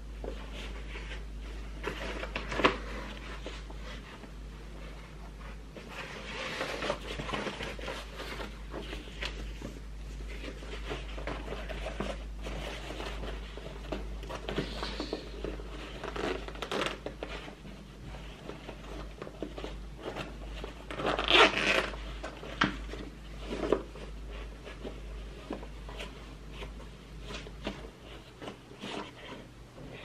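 Zipper on a tactical shoulder bag being pulled open and shut in short rasps, with fabric rustling and small handling clicks as the bag is worked and something is taken out. One longer, louder rasp comes about two-thirds of the way through.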